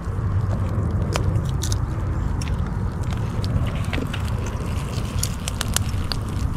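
Small wood fire crackling in a metal brazier under meat on skewers, scattered sharp clicks and snaps with a few denser ones near the end, over a steady low rumble.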